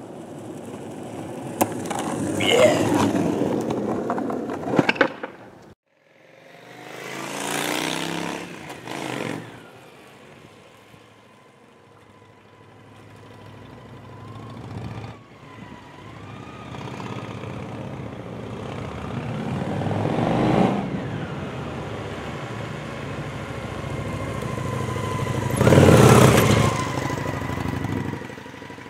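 A skateboard rolls past on asphalt, growing louder with a few sharp clicks, then cuts off. Then a Honda Shadow V-twin motorcycle goes by slowly three times, its engine rising as it nears and falling away, loudest on the last pass.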